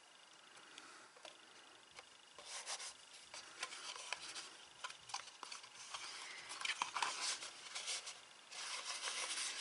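Hands rubbing and handling a cardstock box with freshly glued patterned paper on it: dry paper rustling and rubbing with small taps and clicks, starting about two seconds in and getting louder near the end.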